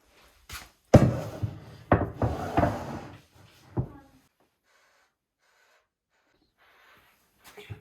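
Hard objects being handled: a sharp knock about a second in, then two seconds of clattering and rubbing, another knock just before four seconds, and a few faint taps near the end.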